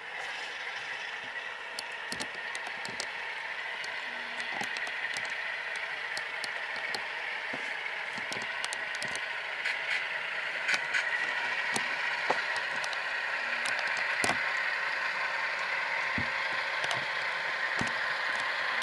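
Tsunami sound decoders in three HO-scale Alco diesel models (RS3, RS10 and RS18) playing Alco 244 and 251 prime mover sounds through small speakers, tinny and without bass, slowly growing louder. Irregular sharp clicks of the model wheels running over the track run through it.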